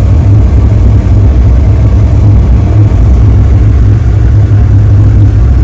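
Truck running on the road through snow, heard from inside the cabin: a steady, loud low rumble of engine and road noise.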